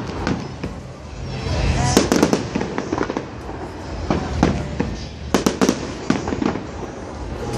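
Aerial fireworks shells bursting overhead: quick clusters of sharp bangs and crackles, about two seconds in, again a little later, and most densely about five and a half seconds in, over a steady low rumble.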